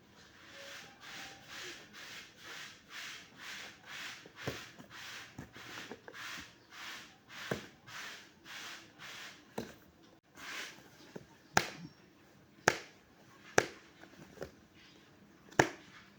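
Rhythmic rustling and rubbing of blind-box packaging being handled, about two strokes a second, then several sharp clicks or taps in the last few seconds.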